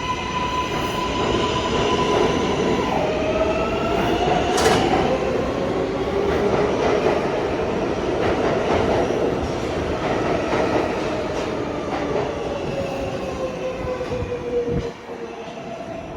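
New York City R143/R160 subway train running, its traction-motor inverter whine a steady high tone that steps down about three seconds in and then glides slowly in pitch, over the rumble and squeal of steel wheels on rail. A couple of sharp clicks are heard, and the noise drops suddenly near the end.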